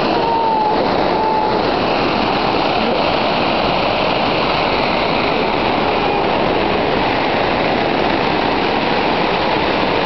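Large man-made waterfall pouring into a stone basin, a loud, steady rush of falling water.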